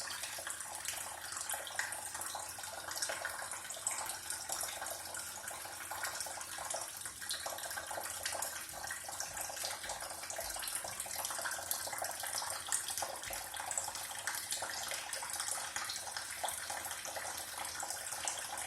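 Water running steadily from a tap, a continuous splashing hiss.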